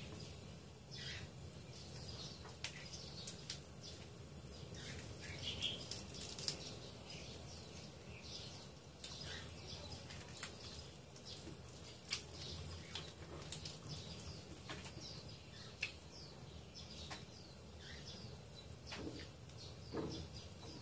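Faint mouth sounds of eating chicken feet by hand: chewing, lip smacks and sucking at the skin, with scattered short sharp clicks.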